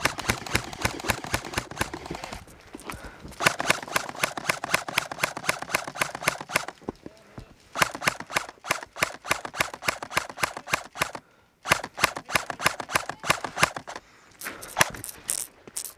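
Airsoft electric rifle firing on full auto in about five bursts of one to three seconds each: a rapid, even rattle of shots with short pauses between the bursts.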